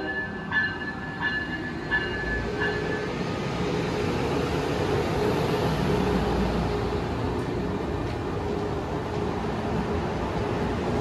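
Amtrak Acela trainset rolling past the platform close by, a steady rumble of wheels and running gear that swells slightly, with a faint low hum. In the first three seconds a short high tone repeats about every two-thirds of a second.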